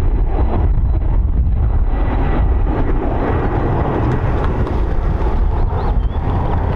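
Steady rumble and faint high whine of a VH-60 White Hawk helicopter's turbine engines and rotor, with heavy wind buffeting the microphone.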